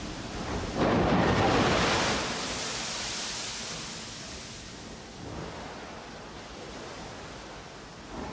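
Coal pouring out through the bottom doors of an HAA hopper wagon into the discharge pit below: a rushing noise that swells about a second in, is loudest for about a second, then fades to a lower, steady rush as the flow eases.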